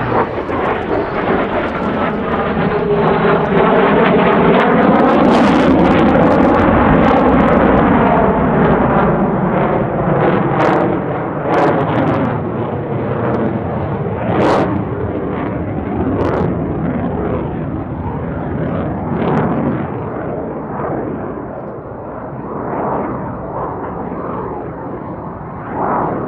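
CF-18 Hornet fighter jet's twin General Electric F404 turbofans as the jet passes overhead and climbs away. The jet noise swells to its loudest a few seconds in with a sweeping, phasing whoosh, then eases and wavers, with a few sharp crackles in the middle.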